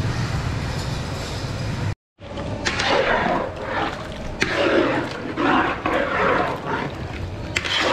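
A ladle stirring chunks of meat in watery broth in a large steel wok, the liquid sloshing and splashing in irregular bursts. It follows a steady rushing hiss and a brief dropout about two seconds in.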